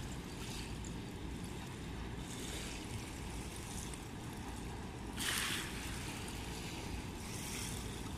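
Rhine river water lapping and splashing at the bank under steady wind on the microphone, with short splashes about two and a half, five and seven and a half seconds in; the one about five seconds in is the loudest.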